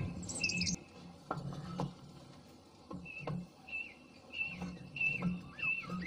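A bird calling with short, slightly falling high chirps, repeated about twice a second through the second half, with a brief burst of higher chirps near the start and a few light clicks.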